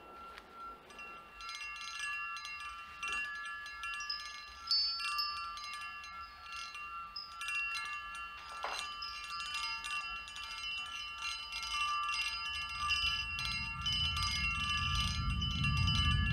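Stemmed wine glasses on a metal tray ringing and chiming, many high tones held and overlapping, with a sharper clink about halfway through. A low rumble builds from about three-quarters of the way in and grows louder near the end.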